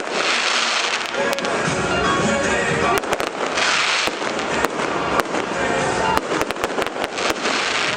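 Fireworks going off in quick succession: many sharp pops and cracks, with hissing crackle swelling up several times, over music.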